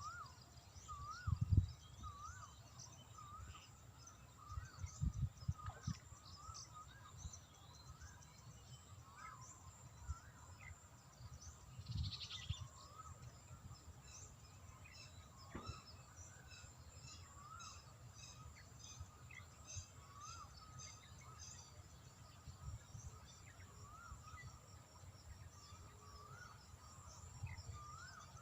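Birds calling outdoors: one bird repeats a short up-and-down chirp every second or two over scattered higher chirps, with a faint steady high insect whine. A few low thumps, about a second in, around five seconds and near twelve seconds, are wind or handling on the microphone.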